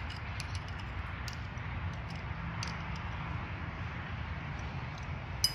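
Steady low background hum with faint, scattered metallic clicks as the parts of a homemade circle-cutting attachment on an acetylene cutting torch are handled and its bolt is turned by hand; a sharper click comes near the end.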